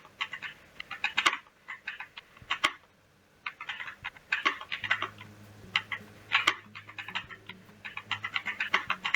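AJAZZ AK870 Plus mechanical keyboard being typed on fast in a typing test: quick bursts of key clicks with short pauses between words. A faint low hum comes in about halfway.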